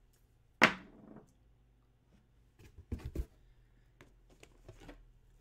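Cardboard box being handled and rummaged through: one sharp knock a little over half a second in, then a few lighter knocks and faint rustles around three seconds in as a hand reaches into it.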